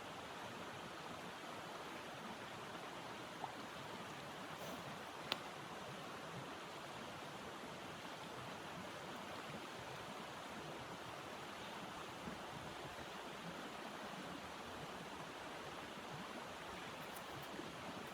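Steady rushing noise with two small sharp clicks, one about three and a half seconds in and one about five seconds in.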